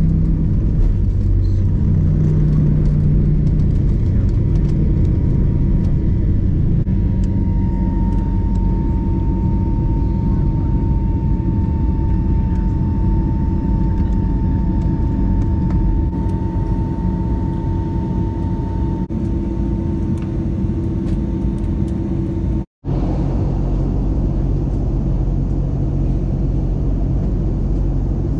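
Jet airliner's engines at takeoff power, heard inside the cabin over the wing: a loud, steady low rumble with a thin whine above it, through the takeoff and climb. The sound cuts out for a moment near the end.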